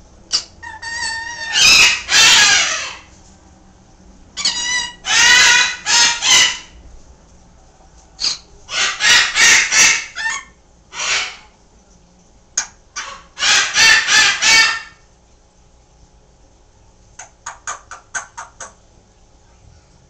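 A Timneh African grey parrot and a green-winged macaw calling: four groups of loud, harsh squawks, some with clear whistled tones mixed in, then a quick run of clicks near the end.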